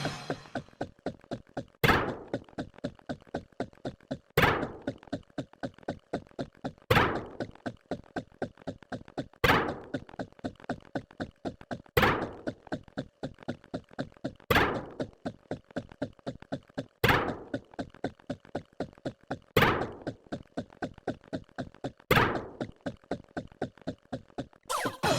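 Looped sound effect: a steady run of light clicks, about four a second, with a heavier thunk every two and a half seconds, ten times over.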